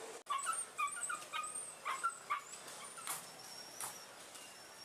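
Caged dogs yelping and whining in a string of short, high calls through the first half, then trailing off, with a couple of sharp knocks after about three seconds.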